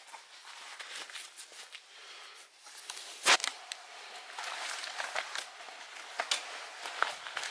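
Footsteps on a debris-strewn floor in a derelict building: irregular gritty steps and crunches, with one sharper, louder step or knock about three seconds in.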